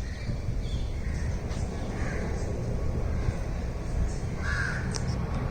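Birds calling outdoors, with two louder harsh calls about two seconds in and near the end, and fainter higher chirps between, over a steady low rumble.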